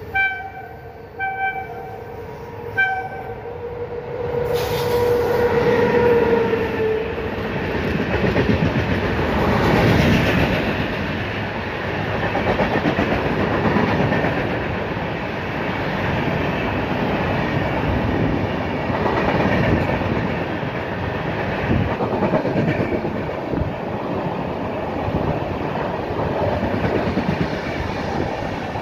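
Passenger train horn sounding three short blasts over a steady tone as the train approaches. From about four seconds in, the loud rumble and clatter of the locomotive and coaches passing at speed takes over, with the wheels clacking over the rail joints.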